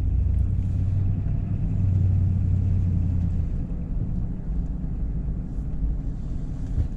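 Steady low engine and road rumble of a Ford F-350 pickup heard from inside the cab while driving. A low hum is strong at first and falls away about halfway through.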